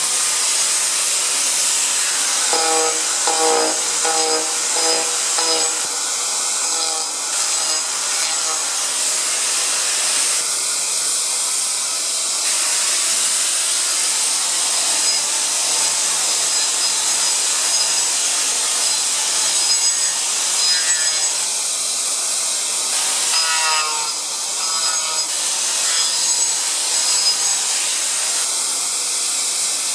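A power tool fitted with a brazed diamond cutter, grinding paint and lacquer off wooden floorboards: a loud, steady, harsh grinding, with the motor's pitch shifting briefly a few times.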